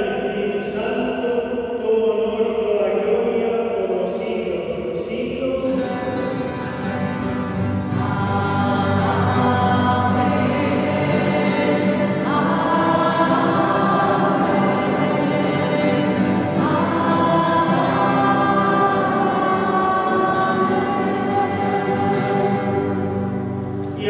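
A group of voices singing a liturgical chant together in sustained sung lines.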